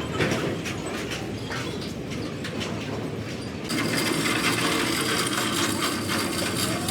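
Rapid, irregular metallic clicking from tools working on truck axle parts. A little over halfway through, a louder steady noise takes over.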